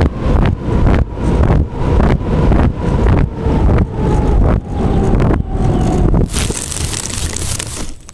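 Aircraft engine heard through heavy wind on the microphone, pulsing about twice a second over a steady tone that slowly drops in pitch. A burst of hiss starts near the end, then the sound cuts off abruptly.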